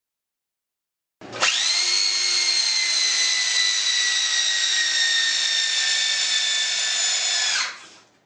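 Metabo BE 75-16 750 W electric drill with a Torx bit driving a 10 × 270 mm screw into a pine beam. The motor starts about a second in and runs with a steady whine that sinks slightly in pitch as the long screw goes in, then stops near the end.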